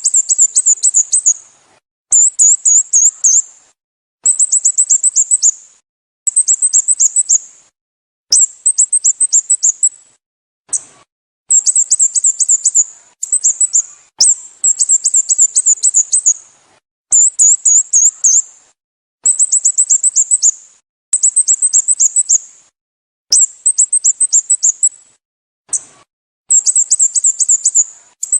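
Sooty-headed bulbul calling over and over: high, rapid runs of down-slurred notes, each run about a second and a half long, repeated roughly every two seconds.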